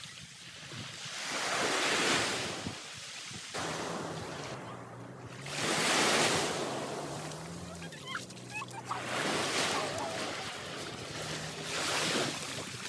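Small sea waves breaking and washing up the beach, the surf swelling and falling away about every four seconds.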